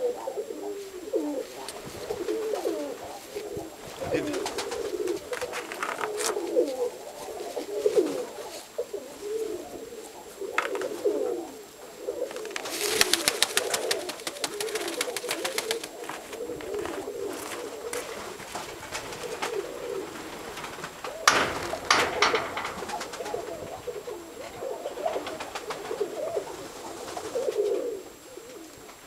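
Domestic pigeons of the Nikolaev breed cooing continually in the loft. There is a rustle of movement about halfway through and a sharp flutter or knock about two-thirds of the way in.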